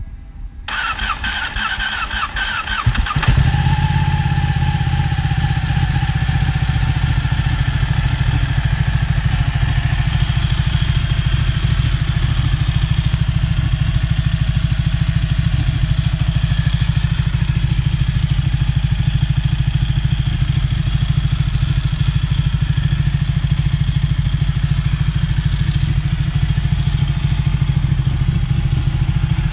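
Ducati Panigale 1199 S Superquadro L-twin with a full titanium Termignoni exhaust being started. The starter cranks for a couple of seconds, the engine catches about three seconds in and then idles steadily.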